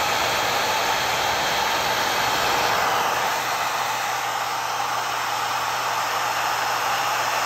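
Vidal Sassoon handheld hair dryer running, a steady rushing blow of air with a low steady hum underneath.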